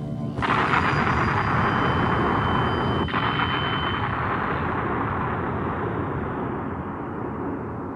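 A sound-effect rumble on the film's soundtrack: a sudden, loud wash of rumbling noise starts about half a second in and fades slowly, with a faint high steady tone over it for the first few seconds.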